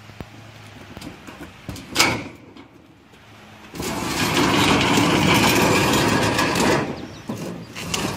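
A padlock and latch clicking and knocking as they are undone, then a corrugated metal roll-up storage door rattling loudly for about three seconds as it is rolled up.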